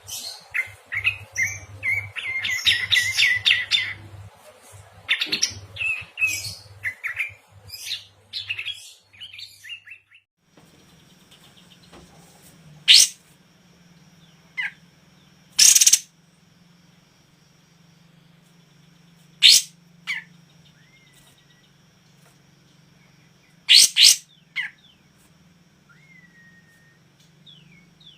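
Caged songbirds singing. For the first several seconds there is dense warbling with a fast rolling trill. Then, after a break, come single loud sharp calls a few seconds apart, with short whistled notes between them over a steady low hum.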